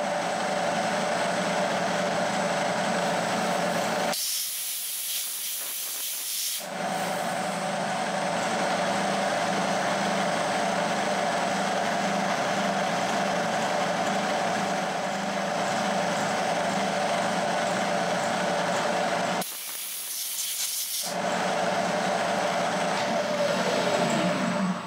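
Milling machine running a 4 mm four-flute carbide end mill, cutting a slot in steel: a steady spindle hum with cutting noise. It is broken twice by a few seconds of loud high hiss from a compressed-air blow gun clearing chips. A falling tone comes in near the end.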